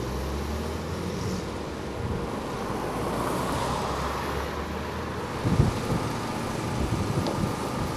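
Motor vehicle engines running on a street: a low engine hum over steady traffic noise, with a couple of knocks about five and a half seconds in.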